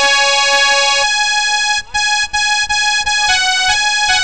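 Harmonium playing a slow melody of long held notes, the pitch changing every second or so, with two brief gaps near the middle.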